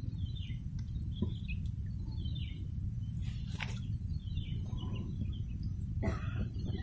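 Small birds chirping in short repeated calls over a steady low rumble of outdoor noise, with a thin, steady high-pitched buzz. There are a couple of brief rustles.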